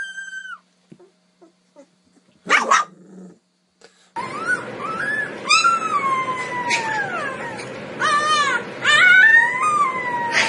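Husky puppy howling and yipping: a run of high, wavering calls that rise and fall, some short and some drawn out, starting about four seconds in over a steady background hiss. Before that, the end of another puppy's high howl cuts off at the start, and a single brief yelp comes about two and a half seconds in.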